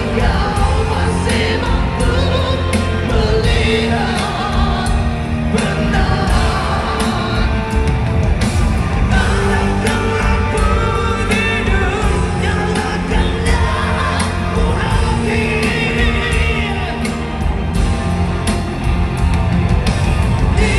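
Live band playing a rock song at full volume, with two male singers trading vocal lines into microphones.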